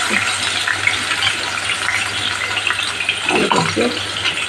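A piece of fish frying skin-side down in hot oil in a nonstick pan: a steady sizzle with dense fine crackling.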